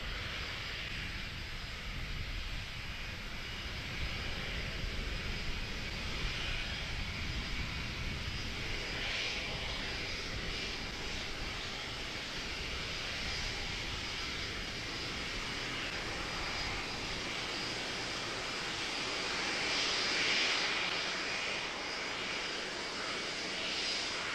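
Lockheed L-1011 TriStar's Rolls-Royce RB211 turbofan engines running as the jet taxis: a steady jet roar and hiss. The higher hiss swells a few times, loudest about twenty seconds in.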